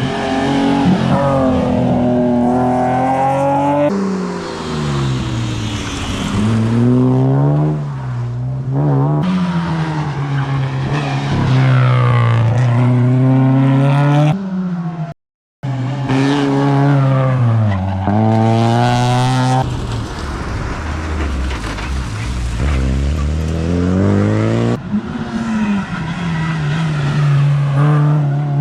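Rally cars at full attack, engines running hard, the pitch climbing and falling again and again through gear changes and lifts, with some tyre squeal. Several passes are cut together, with a brief total break in the sound just past halfway.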